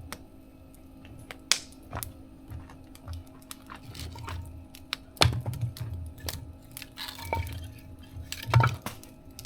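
Wood fire burning in a mesh fire-pit stove, crackling with irregular sharp pops, the loudest about a second and a half in, at about five seconds and near the end.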